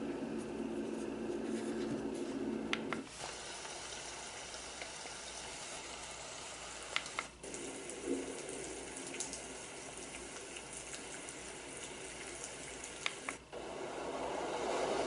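Elesories white noise machine playing its built-in soothing sounds, stepped to a new sound three times: each change comes with a short button click and a brief gap, then a different steady hiss takes over, one of them like running water.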